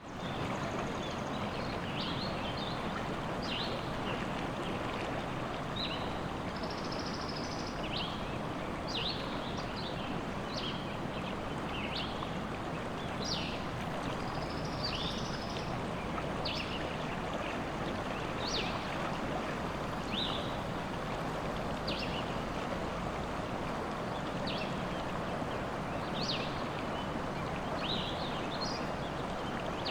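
Steady rush of river water running through a forest, with small birds giving short, high chirps every second or so.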